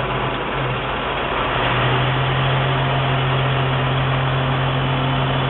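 CompAir C200 TS-24 diesel-driven portable screw compressor running steadily, its low engine hum growing stronger about half a second in and again near two seconds in, then holding steady.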